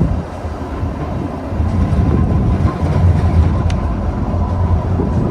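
Train running with a steady low rumble, a faint steady tone above it and a single sharp click about midway.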